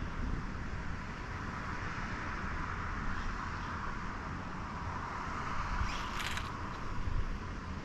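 Steady rush of water pouring through a dam spillway, with wind buffeting the microphone as a low rumble.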